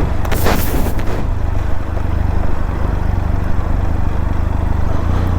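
Benelli TRK motorcycle engine running steadily at low revs while ridden, with a brief rush of noise about half a second in.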